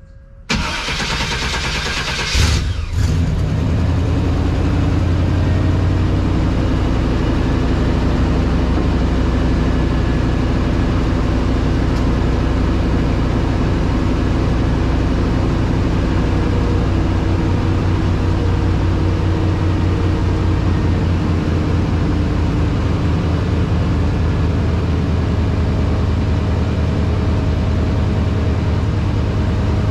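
1989 Chevy K1500's stock 350 (5.7 L) throttle-body-injected V8 cranks for about two seconds, catches, and settles into a steady idle on a cold start at 30 °F.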